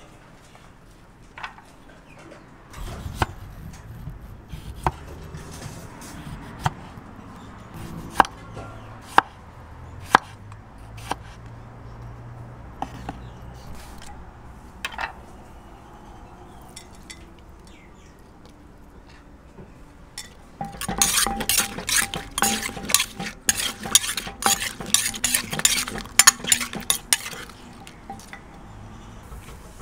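Som tam being made in a clay mortar with a wooden pestle and a metal spoon. Scattered sharp clicks and knocks come first, then a dense run of rapid clinking and knocking from about 21 to 27 seconds in, as the salad is pounded and mixed.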